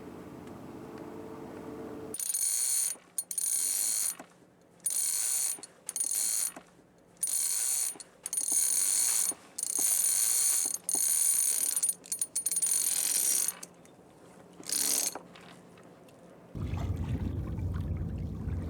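A small mechanism whirring in about ten short start-stop bursts, each half a second to a second and a half long, with brief pauses between. A low hum fills the first two seconds and comes back near the end.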